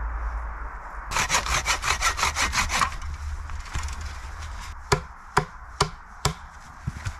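A hand saw cutting through a wooden stick in about ten quick, even strokes, followed by four sharp chops of a small hatchet into wood about half a second apart.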